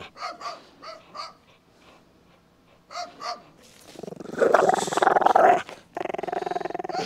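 A pit bull growling as it tugs on a rope. A few short growls come first, then a long, loud growl about four seconds in, and another starts near the end.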